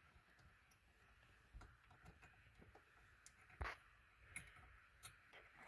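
Near silence with a few faint, scattered small clicks and taps, the clearest about three and a half seconds in, as a loosened T20 Torx dash screw is turned out by hand.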